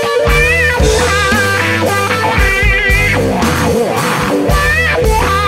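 Electric blues band playing an instrumental passage: a lead guitar line of bent, wavering notes over bass and drums.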